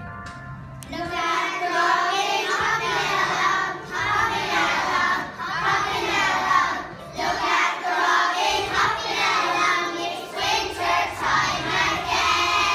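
A group of young children singing together. The singing dips at the very start and picks up again just under a second in.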